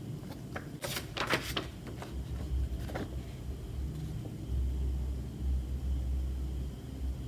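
Paper and card being handled: a comic book and a printed letter sheet are lifted and held up. Rustles and light knocks come about a second in and again near three seconds, with a low rumble through the second half.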